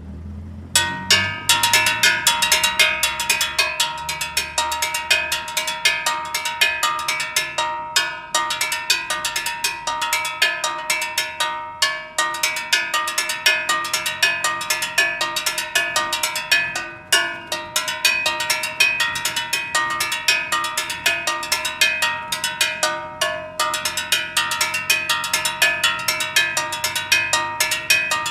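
Steel LP gas cylinder struck in a fast, steady rhythm, each hit ringing with a clear metallic tone: a gas seller's own signature beat, announcing gas for sale from the back of the delivery truck. The beat breaks off for a moment four times and picks up again.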